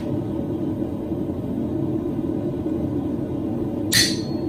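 Steady low shop rumble, with a single sharp hammer strike on metal about four seconds in.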